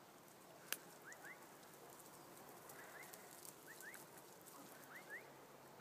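Near silence: faint outdoor ambience with a few faint pairs of short rising chirps and a single sharp click a little under a second in.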